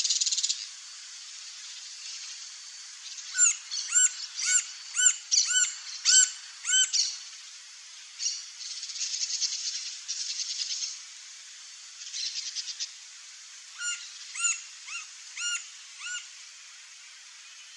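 Green-barred woodpecker calling: a series of about nine short, arched calls, one to two a second, then after a pause a second, shorter series. Between the series a buzzy rattling trill sounds twice.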